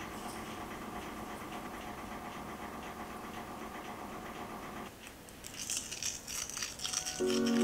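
Granulated sugar poured into a glass mixing bowl onto cubes of butter, a steady rattling hiss for about five seconds. Then a pinch of salt is sprinkled in with a few faint crackles, and soft background music comes in near the end.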